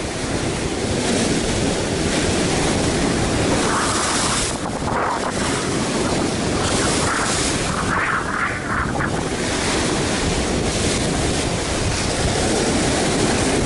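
Rough sea surf breaking and washing over shore rocks, swelling louder a couple of times, with wind buffeting the microphone.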